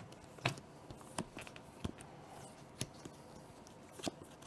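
Trading cards being handled and set down on a tabletop: about five light, scattered clicks and taps over quiet room noise.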